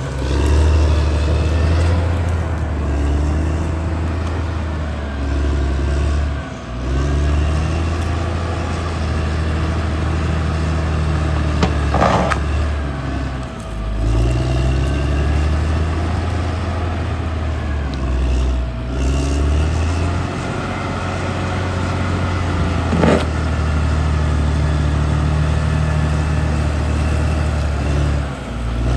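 CAT D6R XL bulldozer's diesel engine running hard, its pitch rising and falling as it takes and sheds load while pushing earth. The engine note drops briefly about 6, 13 and 28 seconds in, and there are two sharp knocks about 12 and 23 seconds in.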